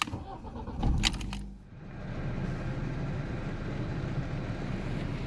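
A few sharp clicks and rattles, then a car running steadily at a low hum.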